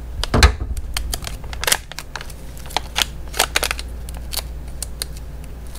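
Plastic retail packets of vape drip tips crinkling and crackling as they are handled and pulled open by hand, in a run of irregular sharp clicks. A heavier thump comes about half a second in.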